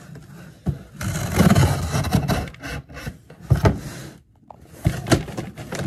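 Scissors scraping and cutting through the packing tape on a cardboard shipping box, with the cardboard rubbing, then a few sharp knocks as the box is handled.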